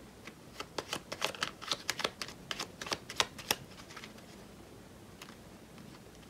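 A deck of cards being hand-shuffled: a quick run of crisp clicks and slaps of card on card for about three and a half seconds, thinning to a few faint taps.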